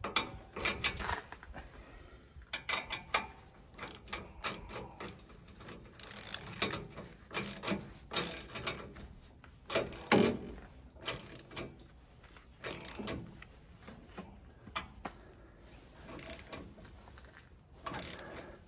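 Socket ratchet wrench clicking in short, irregular bursts as bolts are tightened.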